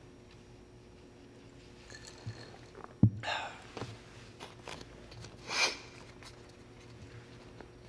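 A man pausing to compose himself as he chokes up: a sharp knock about three seconds in, as of a drinking glass set down on a wooden desk, then audible breaths, one straight after the knock and another a couple of seconds later, with a few small clicks between them.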